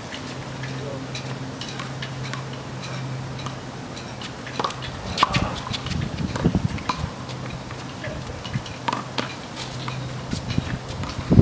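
Handball rally: sharp taps and slaps of a small rubber ball hitting a brick wall and bouncing on asphalt, with sneakers scuffing and stepping on the pavement. The taps grow busier and louder about five seconds in, over a steady low hum.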